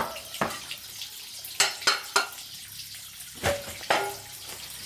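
Water splashing in a string of short, sharp, irregularly spaced splashes, about seven of them.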